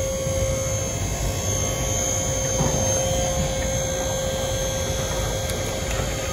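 Dump trailer's electric hydraulic pump running steadily, with a constant hum, as the tipped bed is powered down.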